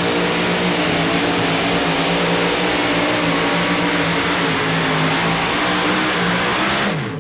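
Supercharged 540 cubic inch Keith Black Hemi in a Chevy S10 two-wheel-drive pulling truck, running at full throttle under load as it drags the pulling sled. It holds a steady, loud note, then the pitch falls away near the end as the throttle is released at the end of the pull.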